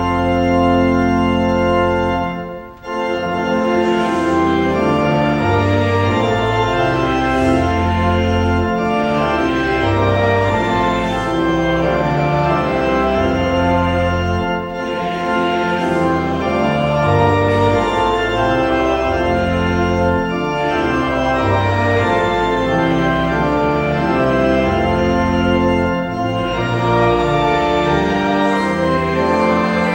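Church organ playing a prelude before the service: held chords over a moving bass line, with a brief break about three seconds in.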